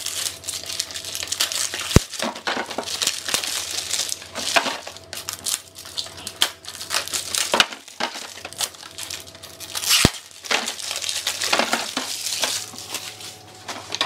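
Packaging crinkling and rustling as small wrapped packets are unpacked from a cardboard box by hand, with a few sharp knocks as packets drop into a plastic basket.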